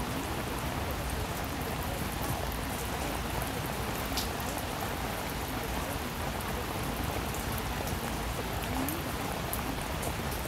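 Steady rain: an even hiss with scattered drop ticks.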